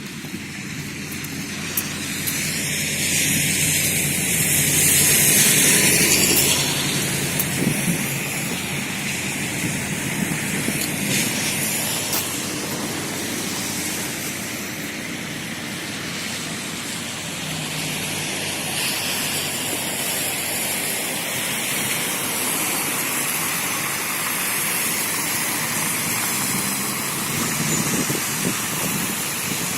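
Street traffic noise, with one vehicle passing close: it swells to its loudest about four to six seconds in, then fades back to a steady traffic hum.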